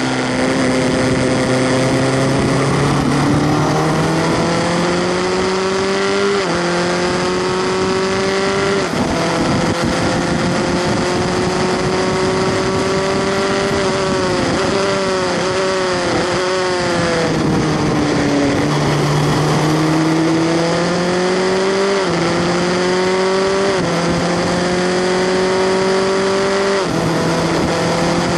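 Onboard sound of a Skip Barber formula car's 2.0-litre four-cylinder engine at racing speed. It pulls up through the gears with sharp drops in pitch at each upshift and holds high revs on the straight. About halfway through come several quick throttle-blipped downshifts for a corner, and then it accelerates out through three more upshifts.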